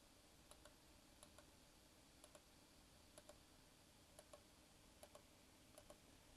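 Faint computer mouse clicks, about seven times, each heard as two quick clicks, roughly a second apart, over quiet room tone: points being placed one by one along a shape's outline.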